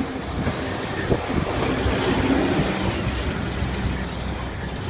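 Ferris wheel turning with riders aboard: a steady mechanical rumble with a faint low hum, a little louder in the middle.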